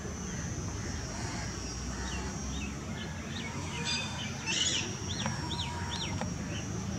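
Small birds chirping repeatedly, short sweeping calls that come quicker in the second half. Under them are a steady low outdoor rumble and a thin, steady high whine.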